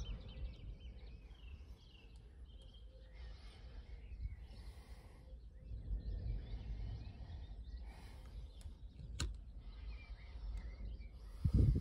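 Outdoor background noise: a low rumble of wind or handling on the microphone, with faint bird chirps now and then, a sharp click about nine seconds in, and a louder low thump near the end.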